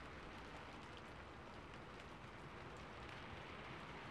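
Faint, steady rain falling on a rooftop, with scattered individual drop ticks. It is a recorded rain ambience track.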